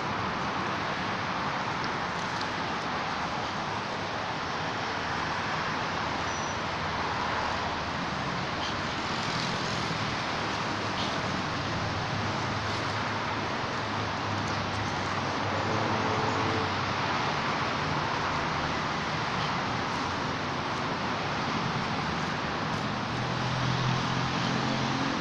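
Steady background road-traffic noise: an even rush with a low engine hum underneath that swells a little as vehicles pass, most noticeably near the end.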